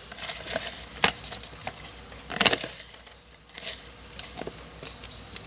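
A hand rummaging through folded paper slips in a plastic jar: a string of short paper rustles and crinkles, the loudest about two and a half seconds in.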